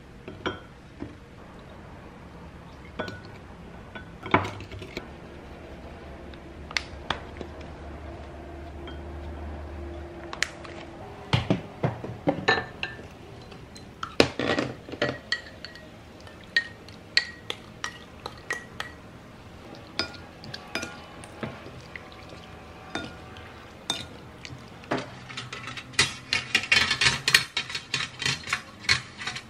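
Dishes, bowls and utensils clinking and knocking as they are handled during cooking, in scattered separate strikes, with a quick run of rapid clinks near the end.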